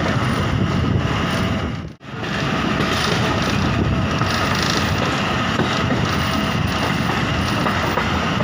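Passenger train running on the rails, heard from an open carriage window: a steady rumbling noise of wheels and wind that drops out briefly about two seconds in.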